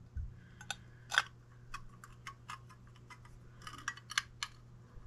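Small screwdriver prying and scraping at the loose faceplate inside a metal oil pressure gauge case, giving scattered light metallic clicks and ticks, with a quick run of them about four seconds in.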